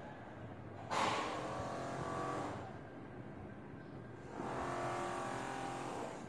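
Motor vehicles passing, the engine noise swelling and fading twice; the first pass starts suddenly and loudly about a second in.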